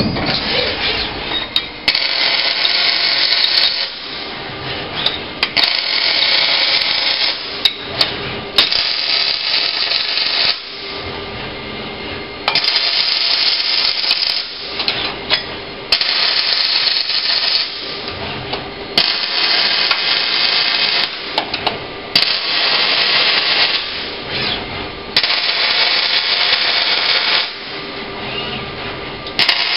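OTC robotic MIG welding arc crackling in runs of about two seconds each, eight welds in a row with short pauses between them as the torch moves to the next joint.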